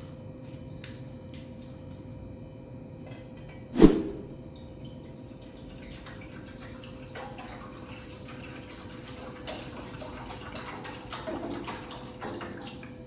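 Bottled drinking water being poured into a cooking pot, with one sharp loud knock about four seconds in.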